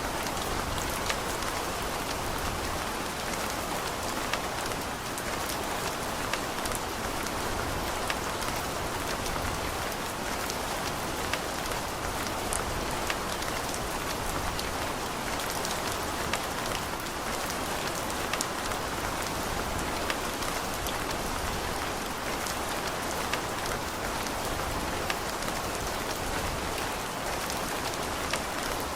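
Steady rain falling, with a dense hiss and many small, sharp drop ticks pattering on hard surfaces.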